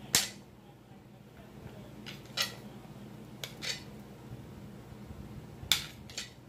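A metal fork clinking and scraping against a ceramic plate as food is pushed off it. There are about seven short, sharp clinks: a loud one right at the start, lighter ones in the middle, and another loud one near the end.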